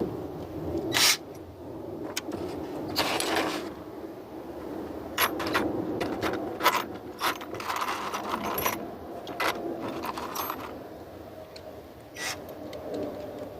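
A run of irregular sharp clicks, knocks and scrapes, as of hard objects or tools being handled, over a low steady hum.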